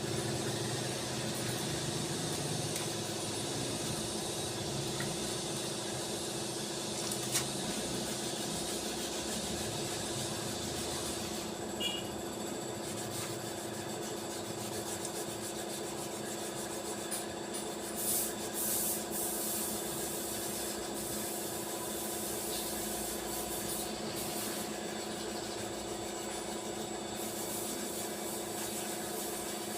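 An electric power tool running steadily: a constant hum with a hiss over it, and a few faint clicks.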